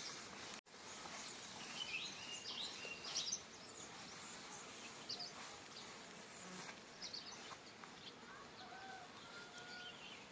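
Faint outdoor ambience: a steady background hiss with scattered short bird chirps, a cluster of them a couple of seconds in, and a few short whistled notes later. A brief dead-silent gap less than a second in.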